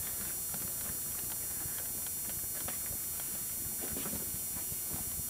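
Faint, irregular footsteps and small knocks on a hard floor, over a steady background hiss.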